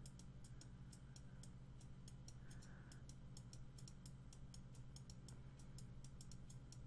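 Near silence: a low steady hum with a faint, even run of rapid ticks, about five or six a second.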